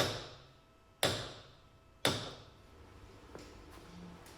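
Copper hammer striking a steel ball peen hammer held as a drift: three sharp metallic blows about a second apart, each ringing briefly.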